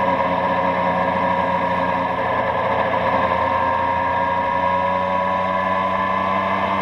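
Yamaha Tracer motorcycle running at a steady cruise on its stock exhaust, recorded from under the tail. The engine note holds a fairly even pitch with only slight drifts, over continuous road noise.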